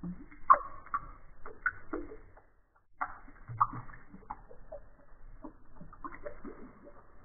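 Water drops falling into shallow water in a plastic tub: irregular plinks and small splashes, with a brief pause about two and a half seconds in.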